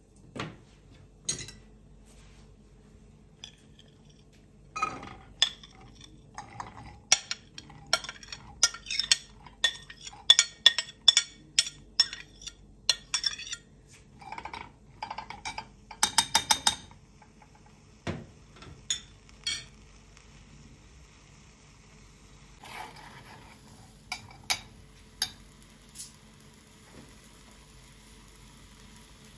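Kitchen utensils and dishes clinking: a long run of sharp clinks and taps, densest in the middle, with a quick rattle of several near the two-thirds mark. About three-quarters of the way in, a faint sizzle of food in a hot pan starts and carries on.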